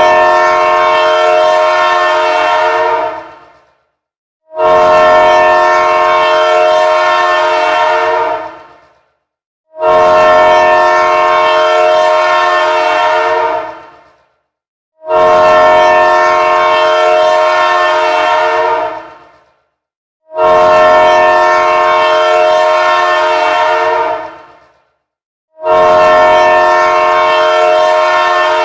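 Emergency alert alarm tone: a loud, horn-like chord of several steady tones, sounding in long blasts of about three and a half seconds, each fading out quickly, with short gaps between them, six times.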